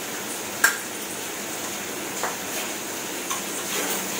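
Steel bowls and utensils clinking and knocking a few times, one sharp clink about half a second in and lighter knocks later, over a steady background hiss.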